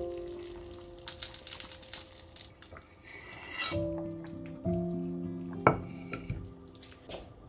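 Beef and tofu stew simmering in a clay pot, crackling and bubbling for the first couple of seconds. A sharp clink comes a little after the middle. Soft piano music plays underneath.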